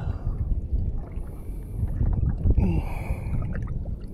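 Water washing along a fishing kayak's hull as a big hooked fish tows it, with wind rumbling on the microphone and a strained breath from the angler about two and a half seconds in.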